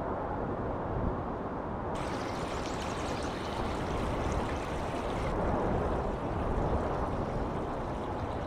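Rushing river water, a steady noise with a deep rumble underneath. A brighter hiss joins about two seconds in and fades back around the middle.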